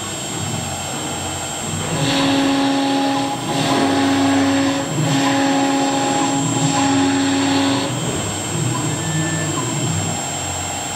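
High-speed CNC wood router's spindle running and cutting a wood panel, with a steady high whine and the hiss of the cutter through the board. A lower hum comes and goes in stretches of one to two seconds as the head travels.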